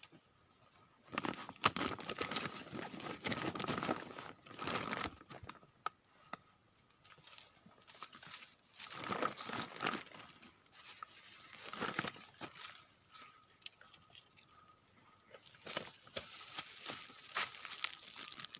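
Rustling and crackling with sharp clicks, in several bursts of a few seconds each: the longest runs from about a second in to five seconds, with shorter ones near ten and twelve seconds and near the end.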